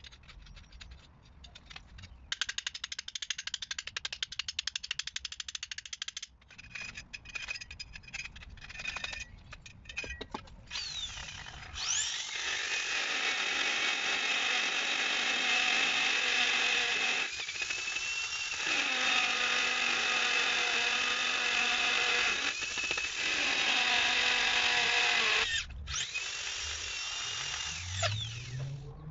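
An electric drill boring a return pipe hole through the pond's insulated block wall. First comes a run of scattered clicks and knocks. About twelve seconds in, the drill spins up with a rising whine and runs steadily for roughly fourteen seconds, easing briefly twice, then stops. It starts spinning up again near the end.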